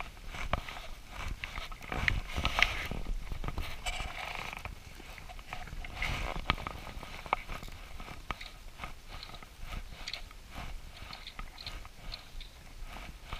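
Scattered clicks, knocks and rustling from hands handling a fly rod, its line and its reel close to the microphone.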